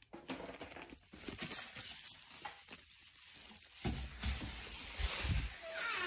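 Rustling and handling noise from a hand-held phone microphone, with scattered small clicks. Low rumbling starts about two-thirds of the way in.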